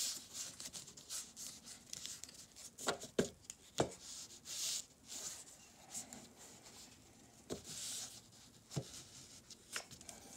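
Trading cards being handled by hand: soft rubbing and sliding of card stock with a few light clicks and taps.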